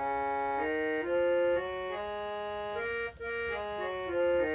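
Harmonium playing a B-flat scale, one held reed note after another stepping in pitch, with a brief break about three seconds in.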